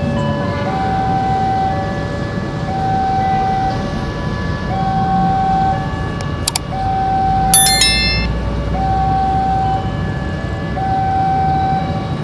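Railway level-crossing alarm sounding a repeating electronic two-tone warning, about one high tone every two seconds, over a low rumble. About two-thirds of the way through there is a brief, bright, ringing clatter.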